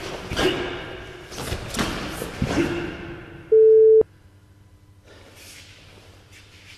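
Fast karate kata: a quick series of sharp snaps and thuds, a karate gi cracking with each strike and bare feet stamping on a wooden dojo floor. A loud electronic timer beep of about half a second, signalling the next round, comes about three and a half seconds in. Quiet rustling of the gi and soft footsteps follow.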